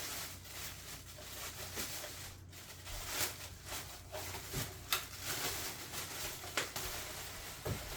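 Handling of new vacuum cleaner parts and their packaging: irregular rustling with scattered clicks and light knocks.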